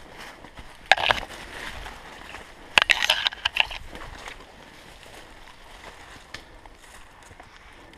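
Dry undergrowth and dead leaves rustling and crackling as someone pushes on foot up through thick brush, with branches scraping past. Two louder crackling bursts come about one and three seconds in.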